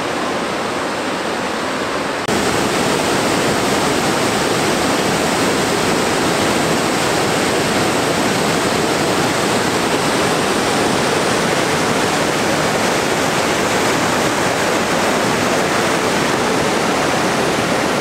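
Waterfall and mountain river cascades rushing over rock, a steady loud rush of water that gets louder and brighter about two seconds in.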